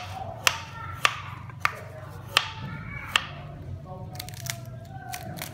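Repeated sharp, hard strikes from food preparation, about one every 0.6 seconds, each with a short ringing tail. After about three seconds they become weaker and further apart.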